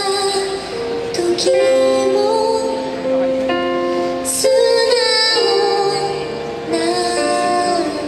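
Slow ballad played live by a small band of keyboard, acoustic guitar, bass and percussion, with a woman singing long held notes.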